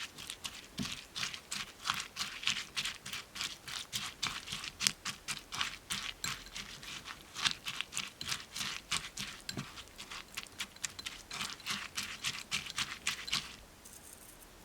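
Rapid light tapping and clicking of a utensil at work, about three to four taps a second, stopping near the end.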